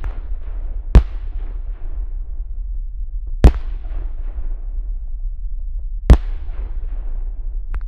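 Salute bangs from Blackboxx 'Vogelschreck' (bird-scarer) category F2 firework batteries: three loud single reports about two and a half seconds apart, each trailing off for a second or more, and a smaller crack near the end. A steady low rumble runs underneath.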